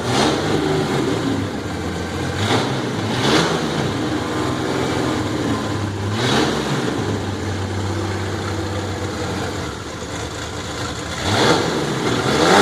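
Chevrolet Caravan SS's newly rebuilt straight-six engine rumbling at idle and blipped about five times, each short rev rising and falling back to idle.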